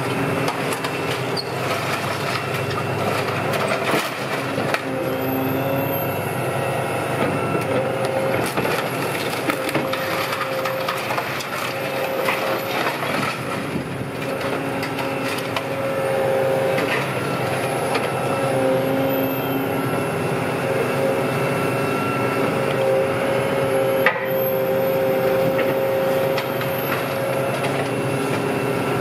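Heavy scrapyard machinery running steadily under load while breaking up a Scania OmniLink bus body, with frequent cracking and crunching of the bus structure.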